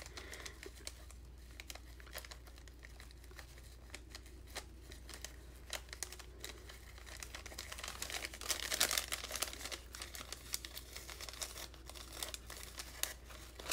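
Paper gift-bag and plastic wrapping rustling and crinkling as fingers pick at and untie a ribbon closing the bag, with a louder spell of crinkling a little past the middle.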